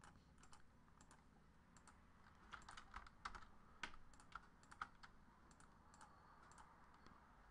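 Faint, scattered clicks of a computer keyboard and mouse, busiest from about two and a half to five seconds in.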